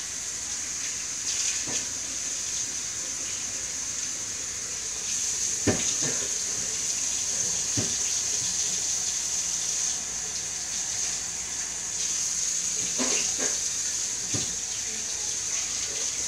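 Kitchen faucet running steadily into the sink, with a few short knocks in between.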